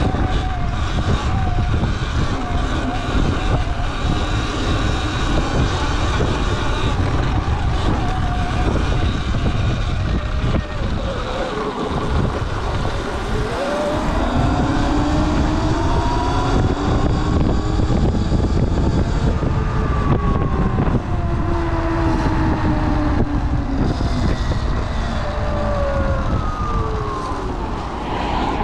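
Surron Light Bee electric dirt bike ridden off-road: heavy wind rumble on the microphone, with the electric motor's whine rising and falling in pitch as the bike speeds up and slows, clearest in the second half.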